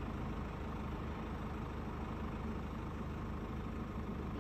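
Steady low mechanical hum under an even background hiss, with no distinct events.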